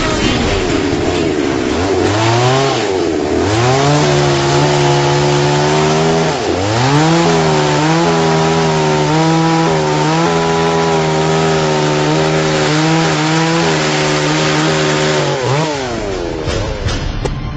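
Petrol chainsaw revving up and cutting into a log, its pitch sagging under load and climbing back, then holding steady through the cut. The saw note falls away near the end.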